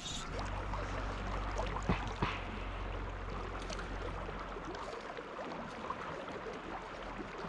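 River current flowing steadily, with a low rumble that fades out about halfway through.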